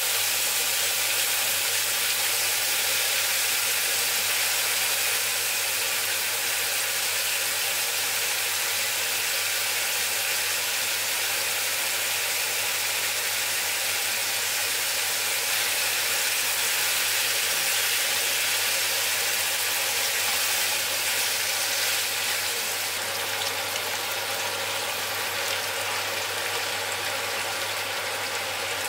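Ground pork and tofu sizzling steadily in a nonstick frying pan, a continuous frying hiss over a faint low hum; the sizzle eases a little in the last few seconds.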